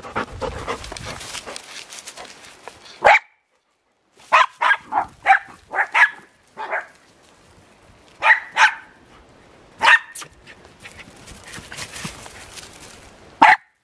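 Jack Russell terrier barking in excited bursts. There are about a dozen short, sharp, high barks: one about three seconds in, a quick run of them in the middle, a pair later, and one more near the end.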